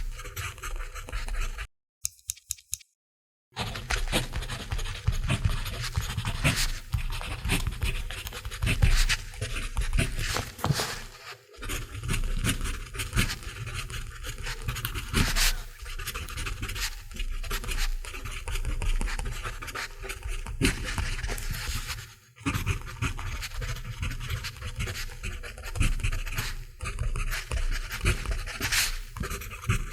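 Mechanical pencil writing on paper: a run of scratchy strokes with short pauses between them, broken by a silent gap of about two seconds near the start.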